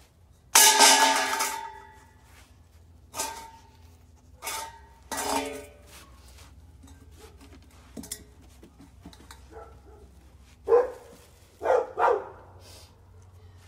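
A dog barking in short bursts several times, with a loud sharp sound about half a second in that rings on for about a second.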